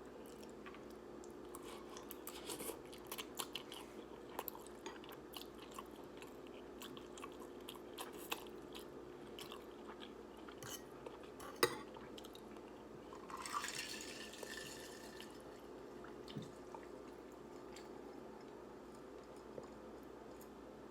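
Faint close-up sounds of a person eating instant ramen noodles: scattered wet chewing and mouth clicks, with one sharp click about twelve seconds in and a brief louder burst a couple of seconds after, over a low steady hum.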